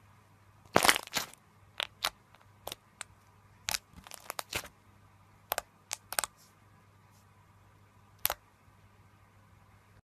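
Slime being pressed by hand, giving irregular sharp pops and crackles, the loudest cluster about a second in and a quick run of them around the middle.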